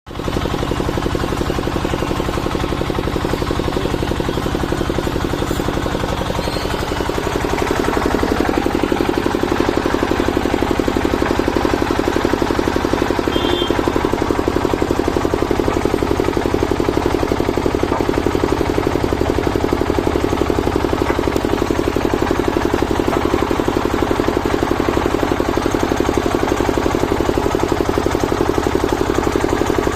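Usha stationary diesel engine running with a steady beat, getting louder and slightly higher in pitch about seven seconds in, then holding steady.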